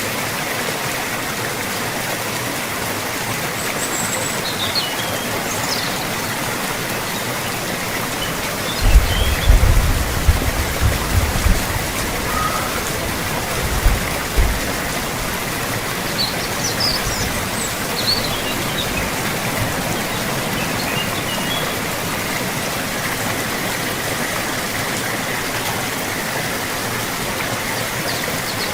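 Steady rain hiss, with a few short high bird chirps. A cluster of loud low thumps comes about nine to twelve seconds in, and another pair near fourteen seconds.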